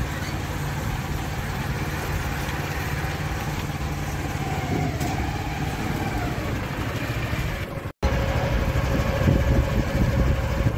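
Passenger river boat's engine running steadily. It breaks off for an instant about eight seconds in and comes back louder and more uneven.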